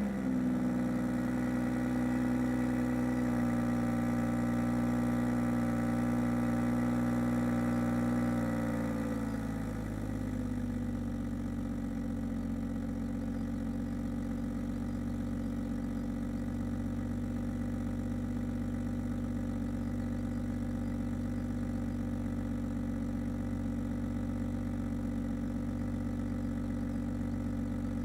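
BMW 440i's B58 turbocharged straight-six with M Performance exhaust idling just after a cold start. It holds a raised cold-start idle, then about eight seconds in the revs ease down and it settles, a little quieter, into a lower steady idle.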